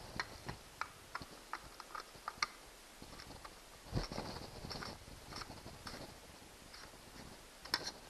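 Screwdriver working a screw in a plastic fishfinder mounting bracket: a run of sharp, irregular clicks in the first couple of seconds, a knock about four seconds in, then plastic handling and scraping with a couple more clicks near the end.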